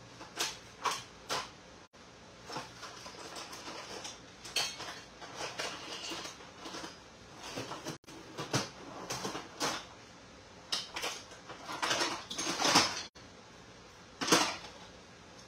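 Irregular scraping and clinking of hand tools on metal, in short strokes, growing busier near the end.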